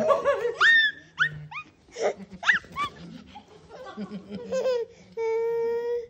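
A small child laughing and giving short high squeals that swoop up and down in pitch, ending about five seconds in with one held, level squeal.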